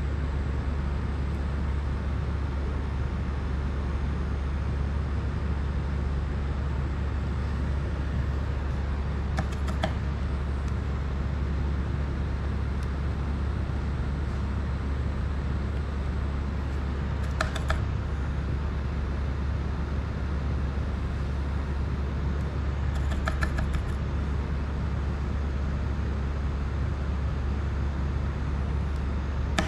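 Steady low droning hum over an even hiss, with no change throughout. A few faint short clicks come about ten, seventeen and twenty-three seconds in, from small tools touching the drone's parts during soldering.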